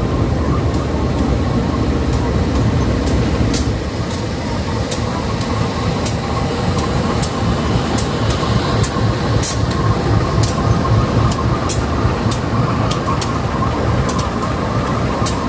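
Diesel locomotive running with a steady rumble and a faint whine, and sharp clicks about every half second, like wheels over rail joints.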